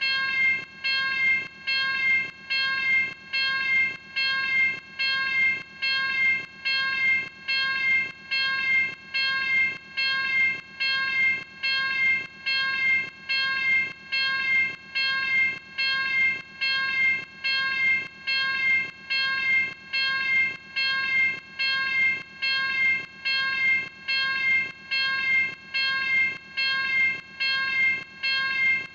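Level crossing warning bell ringing in a steady, even rhythm of about one and a half strokes a second, each stroke a bright metallic ding that fades before the next: the signal that a train is approaching and the crossing is closed.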